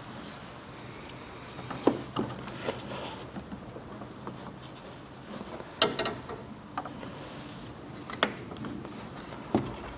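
Hands refitting a hose and its clamp on the plastic power steering fluid reservoir of a Toyota Camry XV40: scattered handling noise with about six sharp clicks and knocks, the loudest about two and six seconds in.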